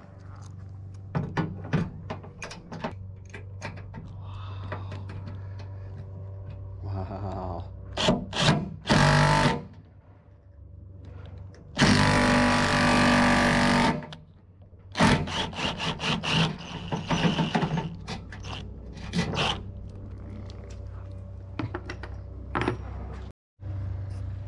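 Cordless drill driving a riv nut setting tool into a hole in a truck tailgate: a short run about nine seconds in and a longer, louder run of about two seconds near the middle, with clicks and knocks of the tool being handled in between.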